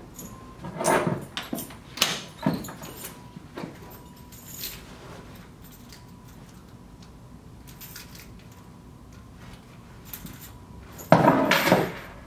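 Metal hose couplings and fittings of a hose inflation kit clinking and knocking as the kit is handled, taken apart and set down on a wooden table: a few scattered knocks in the first five seconds, then the loudest clatter near the end as the hose and its coupling are laid down.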